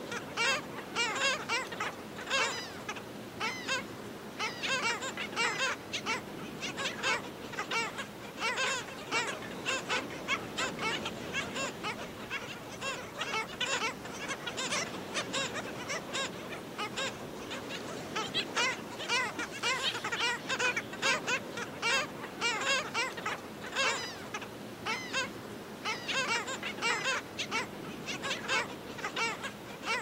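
Black skimmer colony calling: many short, overlapping calls, several a second, with no break.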